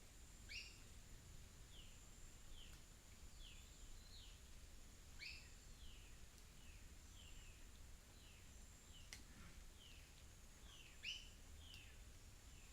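Faint natural soundscape of birds calling in short falling chirps, about one or two a second, with a few louder double chirps. Behind them run a steady high thin tone and a low rumble.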